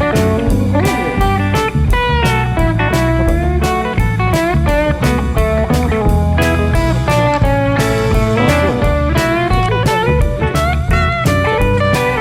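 Background music: a blues-style electric guitar track with bending lead lines over bass and a steady drum beat.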